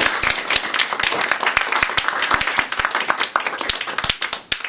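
A small audience applauding: dense hand clapping that thins to a few scattered claps near the end and stops.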